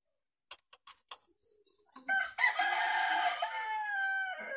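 A rooster crowing once: one long call of about two and a half seconds, starting about two seconds in and falling slightly at the end. A few faint clicks come before it.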